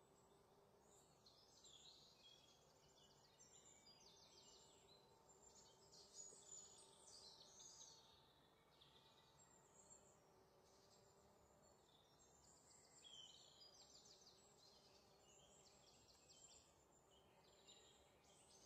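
Near silence, with faint, repeated high-pitched chirps throughout.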